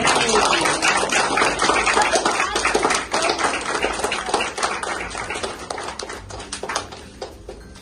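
Applause: many hands clapping in a dense patter that thins out and dies down over the last two seconds.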